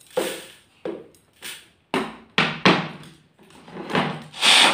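Dry raw rice poured from a bowl into a plastic blender jar in a series of short rattling pours, about eight in all, the loudest near the end, with the plastic jar handled at the top.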